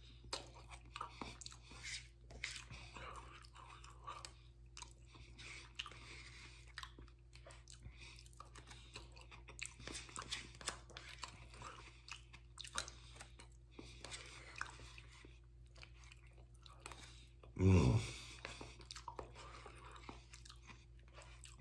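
A person chewing mouthfuls of potato salad, with small clicks of a metal spoon against the cup. A short low voice sound comes once near the end.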